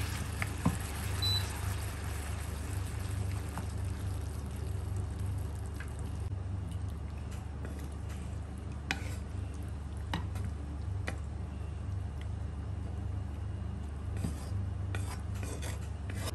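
Wooden spatula stirring and scraping pork ribs in a wok, then scraping them out of the wok onto a plate, with scattered sharp taps and clicks of wood and food against the pan and plate. A steady low hum runs underneath.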